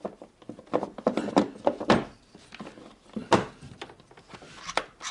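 Irregular clicks and knocks of hands working the spring clips off a Honda Civic's plastic air filter housing and handling its lid.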